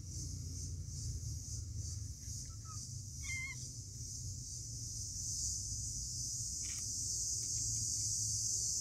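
A very young kitten gives one short, wavering mew about three seconds in, with a fainter squeak just before it, over a steady high hiss and low hum.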